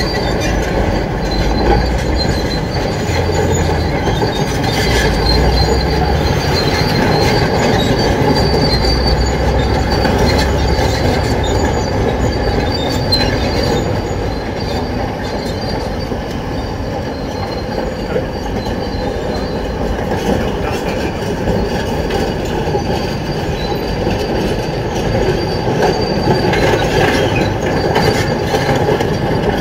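Heavy tracked excavator working, a steady engine drone under continuous metallic squealing and clanking.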